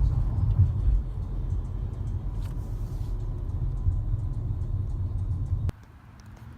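Low, steady rumble of a car driving, heard from inside the cabin. It cuts off suddenly with a click near the end.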